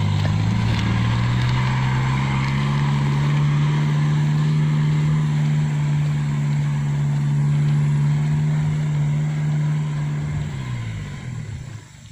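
Isuzu D-Max pickup engine held at steady revs, its pitch falling as the revs drop about ten seconds in, then the sound dies away near the end.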